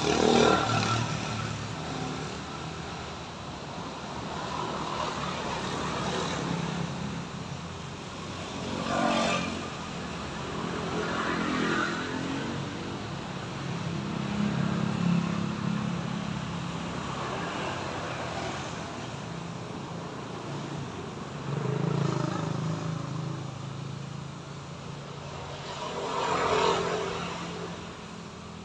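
Road traffic passing by: about six motor vehicles go past one after another, each swelling and fading over a couple of seconds over a steady background hum.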